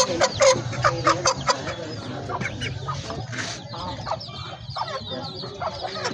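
Aseel chickens clucking: a fast run of loud clucks in the first second and a half, then quieter clucking with small high chirps.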